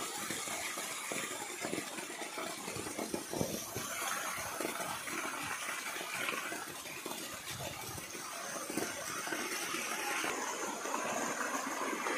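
Water jetting into a concrete tank crowded with hybrid catfish, a steady rushing splash with many small splashes at the churning surface.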